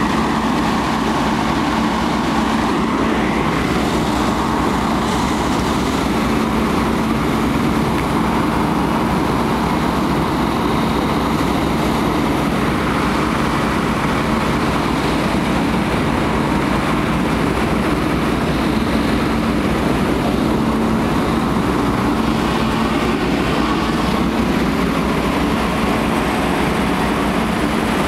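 Fire engine running steadily at the fire scene, driving its pump to supply the hose lines laid from it: a constant, loud engine drone with a steady hum that does not change.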